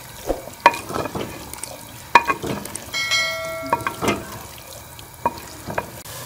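Wooden spoon stirring thick sarson ka saag in a clay pot, knocking against the pot's sides about half a dozen times over a soft sizzle of cooking. A short bell-like chime rings about three seconds in.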